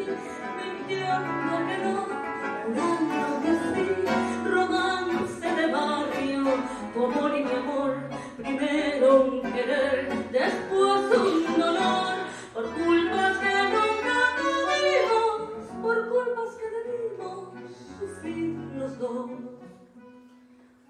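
A tango waltz (vals) played live on bandoneón and classical guitar, with a woman singing. Near the end the music dies away into a brief pause.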